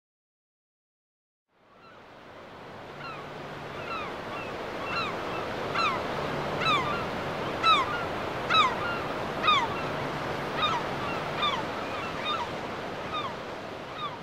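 Ocean surf washing steadily, fading in about two seconds in, with a bird giving short calls that fall in pitch, about one a second.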